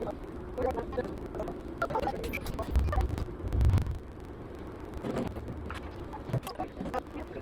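An engine running steadily under scattered clanks and knocks, with two heavy low thuds about three seconds in.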